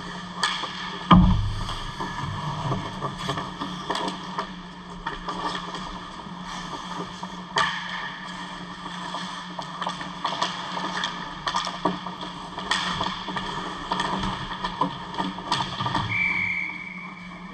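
Ice hockey play close to the goal: skates scraping the ice and sticks and puck clacking, over a steady low hum. A heavy thump comes about a second in, and near the end a referee's whistle blows once, held for about a second and a half, as play stops at the crowded net.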